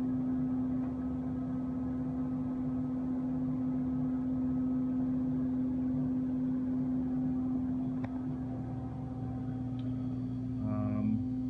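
Electric water pump humming steadily as it pumps treated water from storage drums into the aquarium tanks.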